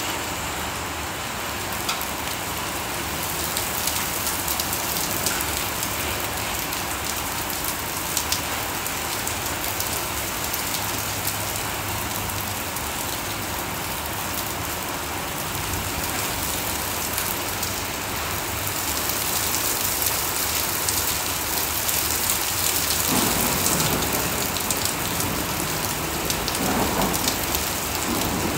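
Heavy rain mixed with hail pouring onto a concrete driveway and shrubs, a steady hiss dotted with sharp ticks of impacts. A low rumble of thunder comes in about three-quarters of the way through.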